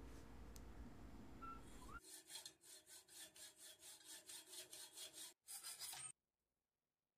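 Hacksaw blade cutting through a black metal shelf bracket held in a vise, with about three strokes a second. The sawing starts about two seconds in and cuts off suddenly near the end.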